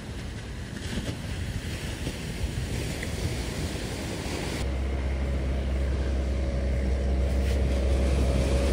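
Sea surf washing onto a beach, with wind on the microphone. About halfway through, the sound gives way to a louder steady low rumble carrying a faint hum.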